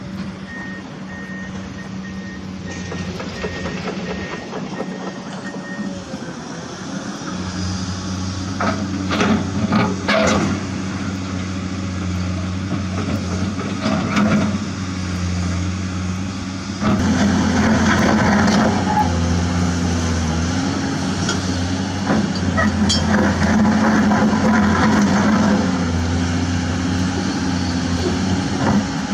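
Dump truck engine running, with a reversing beeper sounding a run of evenly spaced beeps for the first six seconds. The engine gets louder about 17 seconds in and its pitch rises and falls, and a few clicks sound around 9 to 10 seconds.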